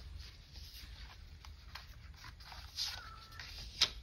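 Die-cut paper ephemera pieces being handled and spread out on a tabletop: soft paper rustling with light taps, and one sharper click shortly before the end.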